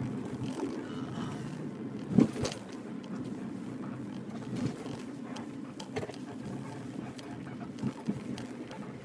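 Steady low road and engine noise heard inside a moving car's cabin, with a few sharp knocks, the loudest about two seconds in.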